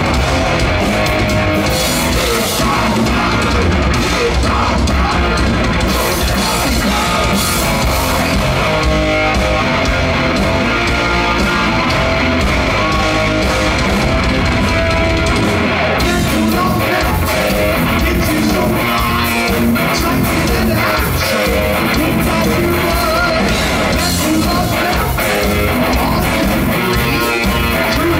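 Heavy metal band playing loud live rock, with electric guitars and drum kit.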